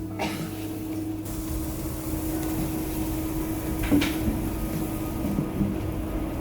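A steady machine hum with a low rumble, and a single sharp clack about four seconds in.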